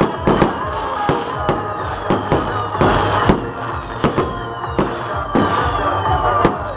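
Fireworks going off over music: irregular sharp pops and bangs about every half second to second, with several whistles falling in pitch, above steady background music.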